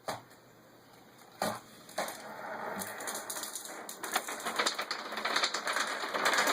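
Homemade chain-reaction machine running: a sharp click, two knocks, then a long rattling, scraping clatter of small parts sliding and tumbling down the contraption, growing louder.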